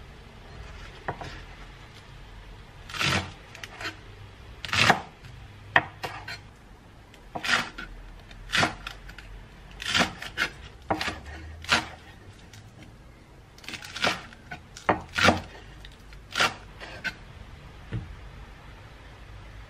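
A santoku knife chopping spring onions on a wooden cutting board: sharp knocks of the blade against the board at an irregular pace, some in quick pairs, the first about three seconds in.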